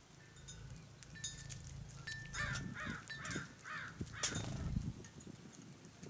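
California scrub-jay giving four short, harsh calls in quick succession, each rising and falling in pitch. A few thin whistled bird notes come before them, and a sharp click follows just after.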